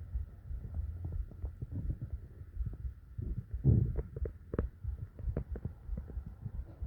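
Human body sounds from close up: a low throbbing heartbeat under stomach gurgles, with many short bubbling pops and one louder, longer gurgle about three and a half seconds in.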